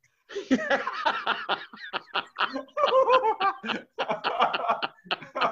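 Men laughing hard together, in quick repeated bursts of laughter that start just after a brief pause.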